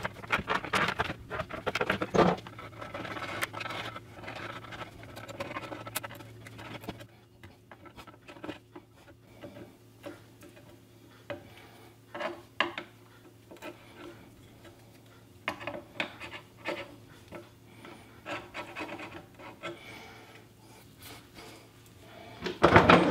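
Hand tool scraping and picking at the wood of a broken cabinet door frame, cleaning out the broken joints. Quick, close-spaced scraping strokes for the first seven seconds or so, then sparser scrapes and small ticks, with a short louder burst near the end.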